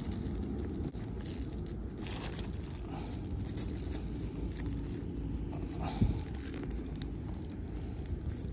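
Insect chirping: short trills of five or six high pulses, repeating every few seconds, over a steady low rumble, with a single knock about six seconds in.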